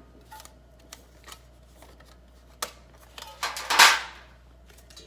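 A folding titanium hexagon wood stove being handled: a few light metallic clicks, then a louder scraping rattle of the thin titanium panels about three and a half seconds in.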